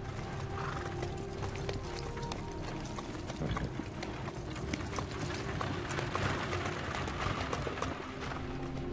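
A carriage horse's hooves clip-clopping on a paved road, as a quick run of sharp clicks, over background music with sustained notes.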